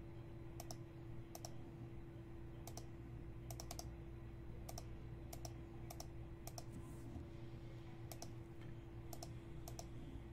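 Faint, irregular clicking of computer keys, single clicks and short clusters, over a steady low hum.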